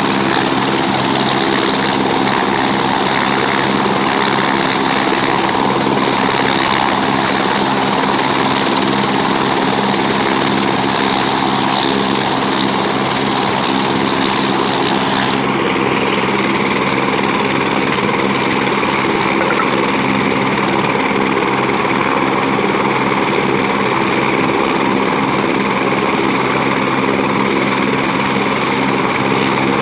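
Single-engine turbine helicopter of the AS350 Écureuil type running on the ground with its main rotor turning: a steady high turbine whine over the drone of engine and rotor, unbroken throughout.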